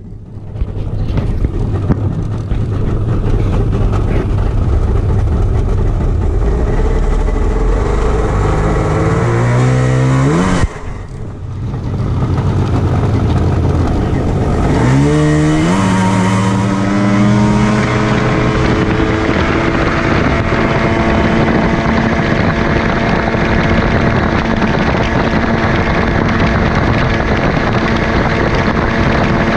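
Jet outboard motor on a jon boat, run hard, with rushing wind and water. Its pitch climbs about a third of the way in, drops briefly, climbs again, then holds a steady high drone as the boat reaches about 41 mph.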